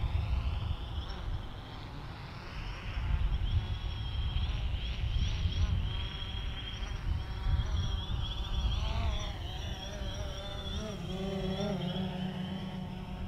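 Quadcopter drone propellers whining, a buzzing tone whose pitch wavers and glides up and down as the drone manoeuvres, over a low rumble. A steady low hum joins near the end.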